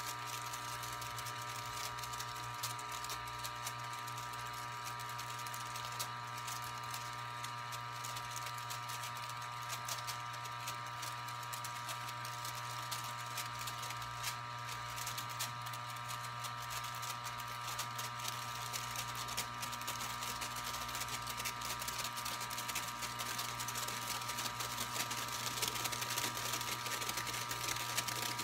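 Storz & Bickel Volcano vaporizer's air pump running with a steady hum, blowing heated air through the solid valve to inflate a balloon bag.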